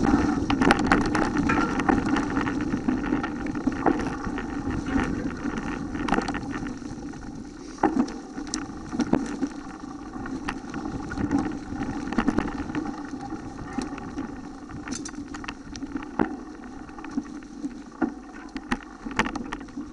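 Mountain bike rolling downhill over a leaf-covered dirt trail: a steady rumble of tyres and wind with frequent sharp knocks and rattles as it goes over bumps. The rumble is louder for the first few seconds, then eases.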